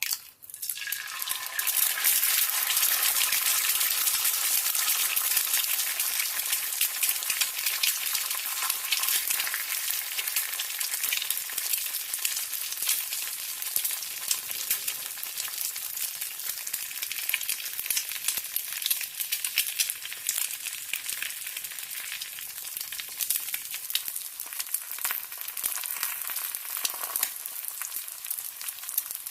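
An egg frying in hot oil in a pan: dense sizzling with many small crackles and pops. It swells up within the first two seconds and then settles a little lower.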